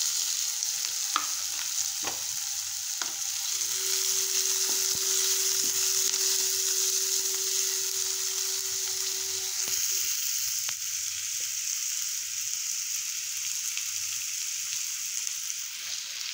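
Chopped onion, garlic and ginger sizzling steadily in hot oil in a nonstick kadai while being sautéed with a wooden spatula, with a few taps of the spatula on the pan in the first few seconds.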